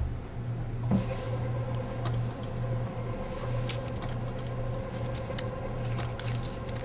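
Supermarket checkout conveyor belt running with a steady motor hum, with a few light clicks and knocks scattered through.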